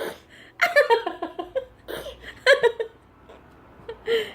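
A young child giggling in several short high-pitched bursts, with quieter pauses between them.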